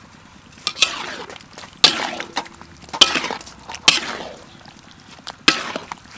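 Metal ladle stirring sliced onions and canned sardines in a wok: a sharp clank against the pan about once a second, each followed by a short scrape.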